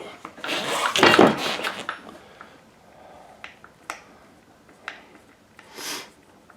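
Rattling clatter of RC truck parts being handled and shifted during disassembly, then scattered clicks and taps of small parts and tools.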